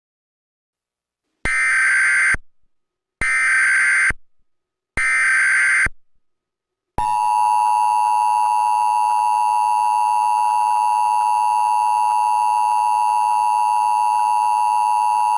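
Emergency Alert System test signal: three short bursts of SAME digital header data, each about a second long, followed by the steady two-tone EAS attention signal held for about eight seconds.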